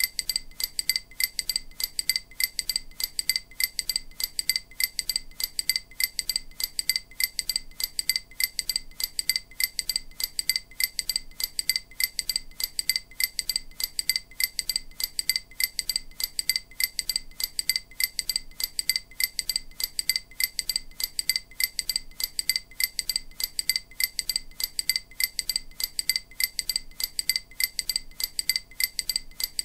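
EMDR bilateral auditory stimulation: a short, bright, high-pitched ping repeated evenly about three times a second at a steady level, meant to sound alternately in the left and right ear.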